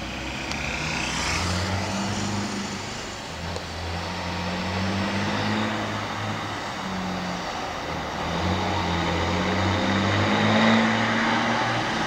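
Volkswagen Constellation truck's diesel engine running through a straight-pipe exhaust, growing louder as the truck approaches slowly. Its deep note drops off and picks up again several times.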